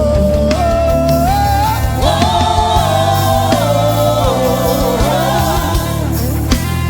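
Live gospel praise music: a singer holding long, gliding vocal notes over a band with steady low bass notes.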